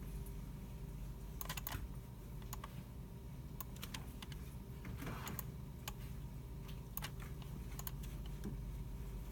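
Computer keyboards and mice being used by several people: irregular, scattered keystrokes and clicks over a steady low hum.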